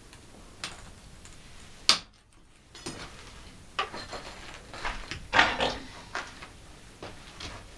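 Steel spring wire ends being snipped off with cutting pliers: one sharp snap about two seconds in, then a series of clicks and metal clunks, the loudest about halfway through.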